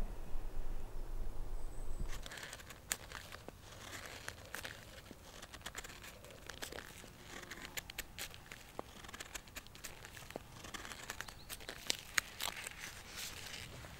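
Knife blade shaving thin curls off a wooden stick onto a metal plate, making tinder: repeated scraping strokes with many sharp crackling clicks. A low rumble stops about two seconds in.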